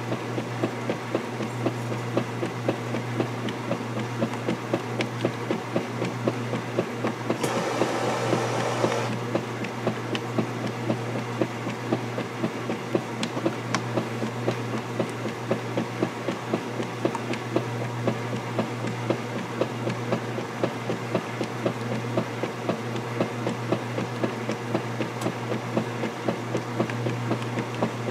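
Vintage KitchenAid direct-drive top-load washer in its wash cycle: the motor hums steadily while the finned agitator strokes back and forth through the sudsy load with a regular, rhythmic swish. A brief louder rush of noise comes about seven seconds in.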